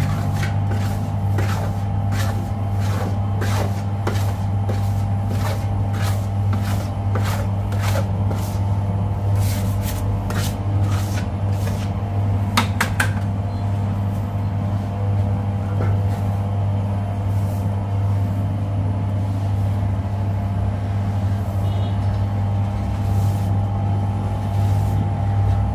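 Bakery machinery running with a steady low hum, over which come light knocks and clicks of dough handling and tools, frequent in the first half and sparser later.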